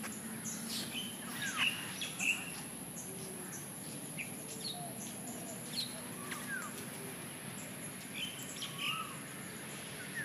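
Several birds calling in the trees, a scatter of short chirps and whistled notes, some sliding in pitch, over a steady low background hum and a faint constant high tone.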